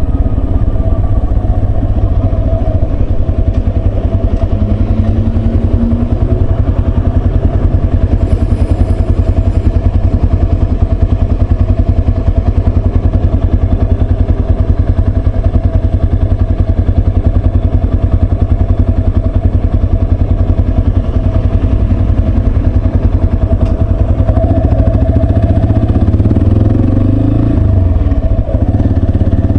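Yamaha Serow 250's air-cooled single-cylinder four-stroke engine running under way, a steady pulsing engine note. Its pitch shifts a few seconds before the end as the revs change.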